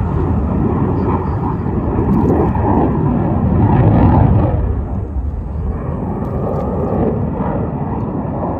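An aircraft flying past, its engine rumble swelling to its loudest about four seconds in and then easing off.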